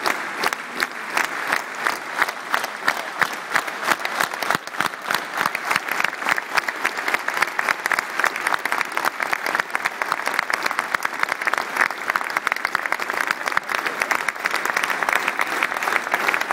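Large stadium crowd applauding steadily, with sharp, distinct hand claps close by standing out above the mass of clapping.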